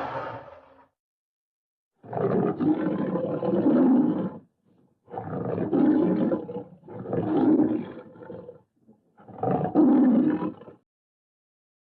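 Bear roars from a sound-effect recording: four separate deep, growling roars of one to two and a half seconds each, separated by dead silence.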